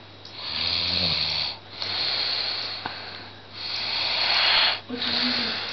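A sleeping teenage boy snoring loud, with four long rasping breaths about one to one and a half seconds apart. The first breath carries a low, buzzing rattle.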